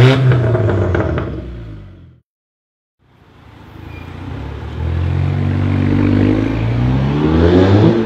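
Audi A5 2.0 TFSI turbocharged four-cylinder through an Armytrix valvetronic exhaust, revving. A rev falls away and fades out in the first two seconds. After a second of silence the engine sound builds again and revs up steadily, rising in pitch over the last three seconds.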